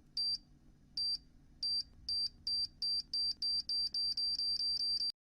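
High-pitched electronic beeping, slow at first and speeding up from about one beep a second to four or five a second, then stopping suddenly: a time-bomb countdown sound effect leading into a detonation.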